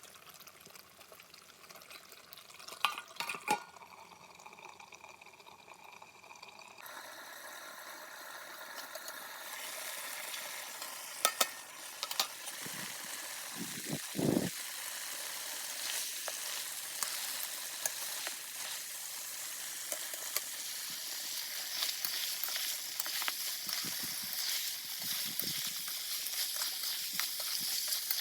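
Pork frying in a pan, sizzling, with a few sharp clinks from about 3 seconds and again near 11 and 12 seconds. The sizzle starts faint and grows louder through the second half.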